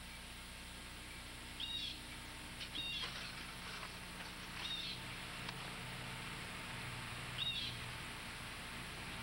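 Faint steady hum and hiss with four short, high-pitched chirps spaced one to three seconds apart.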